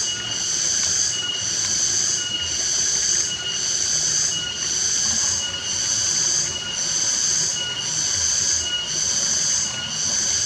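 Insect chorus calling in high, buzzing pulses that repeat about once a second.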